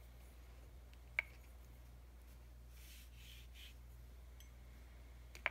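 Faint soft swishes of a watercolor brush stroking over paper, with a sharp light click about a second in and another near the end, over a low steady hum.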